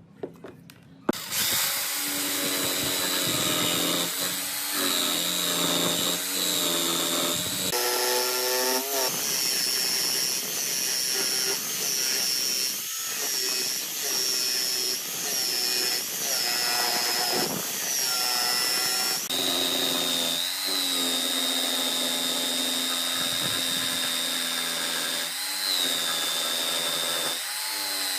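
Electric power tool starting abruptly about a second in and running on wood, its pitch dipping and recovering again and again as it bites in under load.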